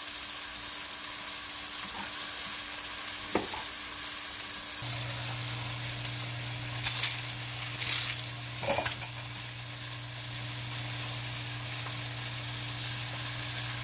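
Beef chuck roast searing in oil in a hot pan: a steady sizzle, with a few knocks from a knife on the cutting board about three, seven and nine seconds in.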